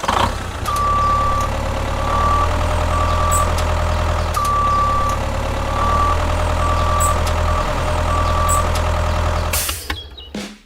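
A vehicle engine running steadily, with a series of high beeps of uneven length over it, like a warning beeper. It cuts off abruptly shortly before the end.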